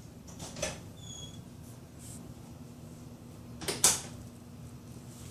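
Tools and parts being handled during disassembly of a pressure washer's engine: two sharp knocks, the second louder, about three seconds apart, with a brief high squeak between them over a faint steady hum.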